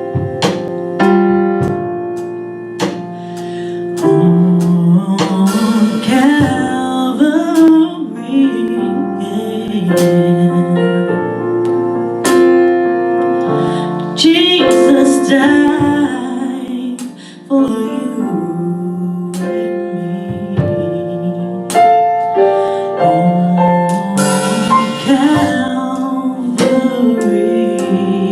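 A vocal group singing a slow gospel song in harmony, with piano accompaniment. The voices hold long notes over piano chords.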